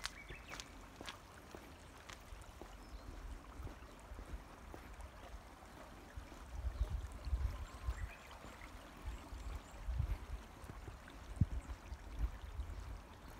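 A small stream trickling steadily in a roadside ditch, with a few faint bird chirps. From about halfway in, gusts of wind rumble on the microphone.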